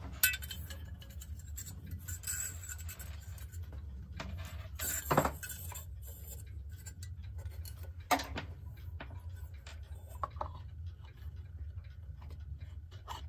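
Clicks and clinks of a clock back plate being handled and fitted onto the clock case. The sharpest knocks come just after the start, about five seconds in and about eight seconds in.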